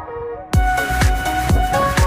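Background music: a brief muted passage, then about half a second in a full beat comes in, with a deep kick drum about twice a second under a steady melody.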